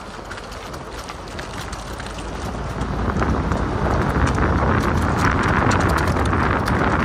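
Car tyres rolling over dry fallen leaves on a paved forest road: a steady rush of tyre noise full of small crackles, growing louder about three seconds in.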